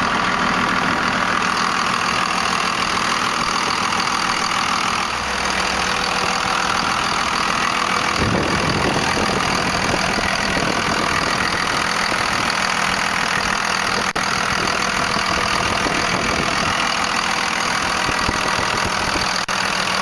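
Cummins 5.9-litre turbo-diesel inline-six in a 1998 Dodge Ram 2500, idling steadily with its diesel clatter.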